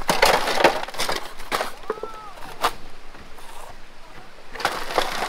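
Rocks knocking and clattering as they are tipped and thrown onto a stone road fill. A run of irregular sharp knocks, thickest at the start and again near the end.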